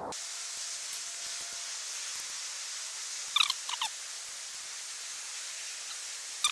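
Small tinder fire of birch shavings and feather sticks catching, with a steady hiss and faint crackle. A few short, high chirps come about three and a half seconds in and again at the end.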